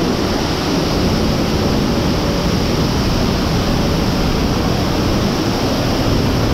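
Large waterfall pouring, a steady loud rush of falling water.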